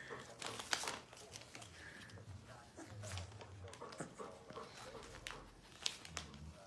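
Newspaper rustling and crinkling under a puppy's paws as it steps about and noses a crinkly gift bow, with scattered light clicks and taps.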